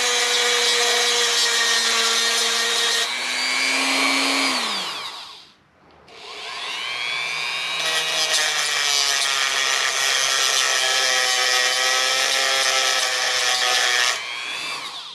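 Electric grinder grinding a flat spot onto a steel flex-shaft drive cable. The motor winds down to a stop about five seconds in, starts up again a second later and grinds steadily until about a second before the end.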